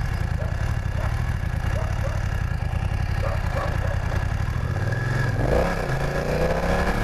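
BMW F 900 parallel-twin motorcycle engine pulling away from low speed, running at low revs at first, then revving up with a rising pitch about five seconds in as the bike accelerates.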